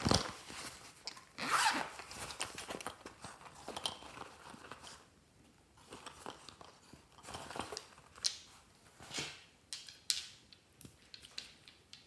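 Zipper of a fabric pouch pulled open, then rustling and rummaging inside it, with a few sharp clicks as glass nail polish bottles are taken out.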